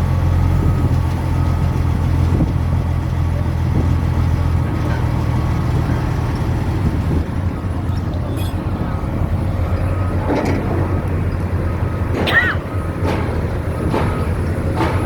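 Crane engine running steadily under a repeating short warning beep. Several sharp knocks and a brief high call come in the second half.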